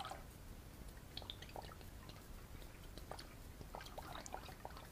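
Cleaning solution being poured from a bottle into the water-filled tank of an ultrasonic cleaner: faint pouring and splashing, with scattered small ticks.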